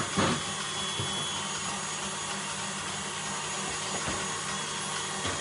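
Two sharp knocks right at the start, then a steady machine hum with hiss underneath.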